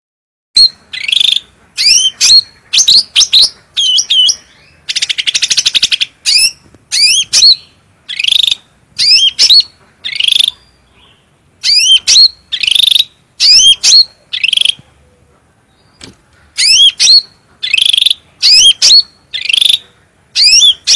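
A cucak rante songbird singing loud, sharp whistled phrases: short notes sweeping upward, repeated in quick runs with a buzzy rattle about five seconds in and brief pauses between bouts.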